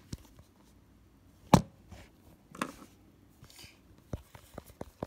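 Plastic toy animal figures being handled and knocked together, giving a few scattered clicks and knocks. The loudest is about a second and a half in, with a run of small ticks near the end.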